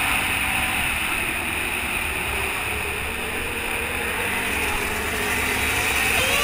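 ATV engine running steadily while the quad is ridden along a dirt trail, mixed with a dense rushing noise.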